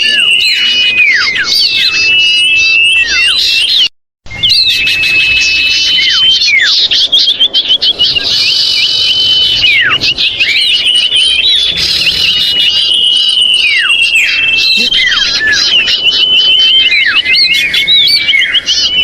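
Dense, agitated chorus of common iora (cipoh) calls: many overlapping whistled notes and sharply falling squealing calls, used as a bird-trapping lure recording. The sound cuts out completely for a moment about four seconds in.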